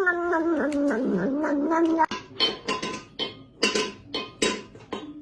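A cat's long, drawn-out yowl that wavers and falls in pitch for about two seconds. It is followed by a string of short, sharp noisy bursts at uneven intervals.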